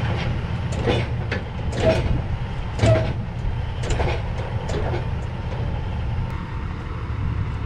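Heavy tow trucks' diesel engines running steadily while they pull a loaded grain trailer upright, with a string of irregular metal clanks from the rigging and trailer, the loudest about three seconds in.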